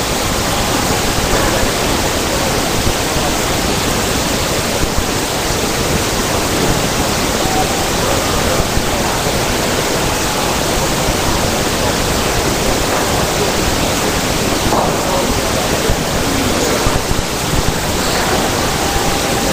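A loud, steady hiss of recording noise with a faint, muffled voice barely showing through it.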